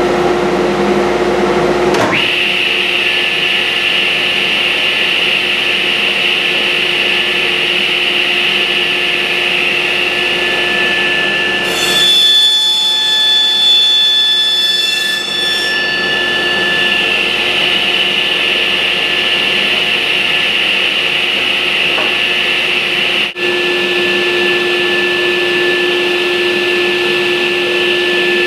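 Table saw with a dado blade running with a steady whine while cutting spline slots into the mitered corners of a cherry picture frame held in a jig. The sound changes to a higher ringing from about twelve to sixteen seconds in, and there is a brief dropout about twenty-three seconds in.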